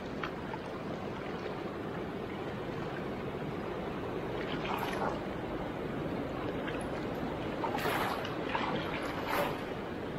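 Fast, silt-laden river rushing steadily, with three short louder splashes in the second half as a cast net is hauled in through the water.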